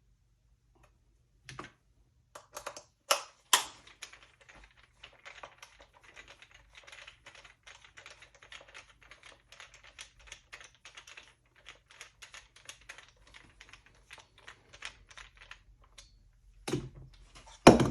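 A long run of quick, light metallic clicks, about four or five a second, as a screwdriver works the screws holding the side shell carrier on a Remington 870 pump shotgun, with two louder knocks about three seconds in.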